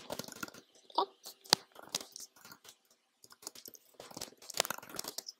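Typing on a computer keyboard: irregular runs of key clicks, with a short pause a little past halfway.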